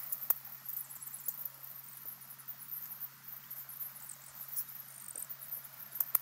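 Outdoor pond ambience: faint, high-pitched chirping and ticking over a steady low hum, with a sharp click about a third of a second in and another near the end.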